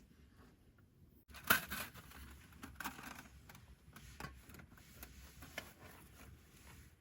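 Irregular clicks and crackles from cooking over a wood campfire, starting suddenly with a sharp click about a second and a half in.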